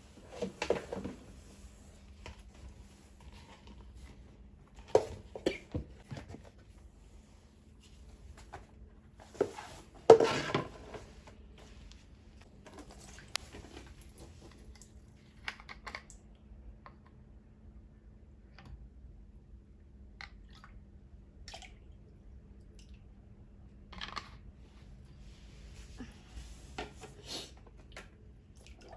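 A wet pillow being hand-washed: scattered squishing and splashing with drips as it is handled and squeezed in water, loudest about ten seconds in.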